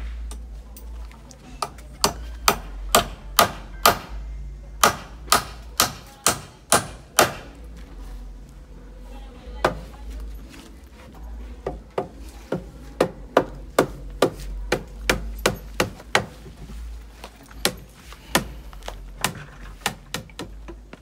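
Hammer driving nails into wooden boards: two runs of sharp, steady blows at about two a second, with a pause of a couple of seconds between them.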